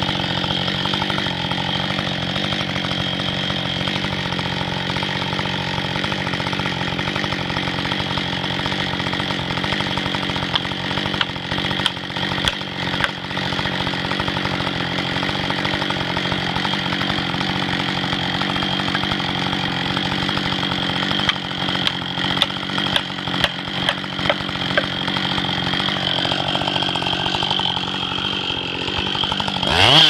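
Two-stroke chainsaw idling steadily, with a run of short sharp knocks about two-thirds of the way through as a felling wedge is driven into the cut.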